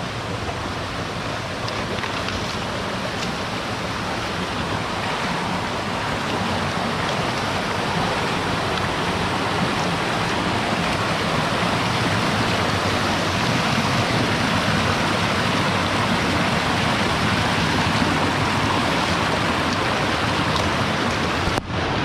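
Waterfall and stream water rushing steadily, growing a little louder over the first half, with a brief break near the end.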